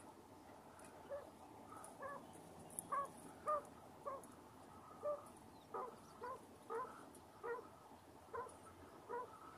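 Broody quail hen giving a steady series of short, low calls, about one to two a second, each a quick rise and fall in pitch.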